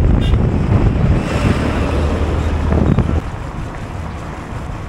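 Wind buffeting the microphone of a camera on the outside of a moving car, over road noise. A low diesel engine drone from an oncoming backhoe loader passing close by is loudest for the first three seconds, then drops away abruptly.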